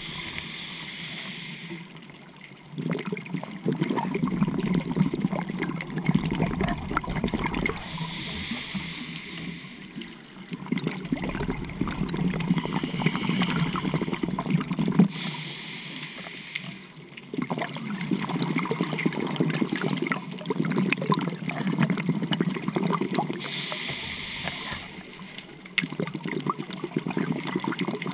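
Scuba regulator breathing underwater: a short hiss on each inhale, then several seconds of crackling, bubbling exhaust bubbles, about four breaths in all.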